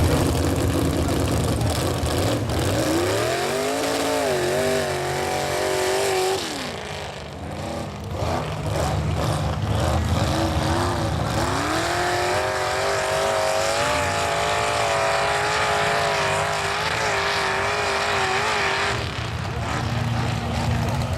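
Chevy mega truck's engine revving hard in the mud, its pitch climbing and falling several times over a loud steady roar. It eases briefly about a third of the way in, then revs up again and holds high for several seconds.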